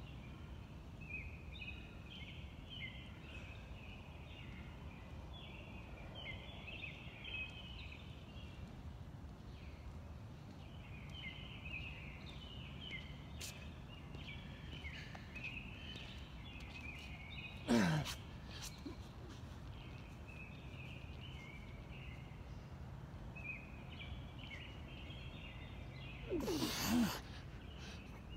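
Night-time chorus of chirping animals: a steady stream of short, high chirps. Twice, a louder short sound falling in pitch rises above it: about two-thirds of the way through, and near the end.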